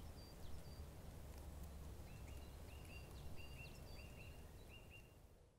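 Faint outdoor ambience: small birds chirping, with a quick run of short repeated chirps in the second half, over a steady low rumble. The sound fades out at the very end.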